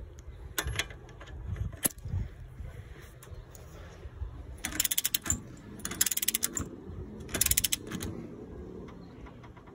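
Click-type torque wrench ratchet clicking as a bolt is tightened: a few single clicks in the first two seconds, then three quick runs of rapid pawl clicks as the handle is swung back between strokes.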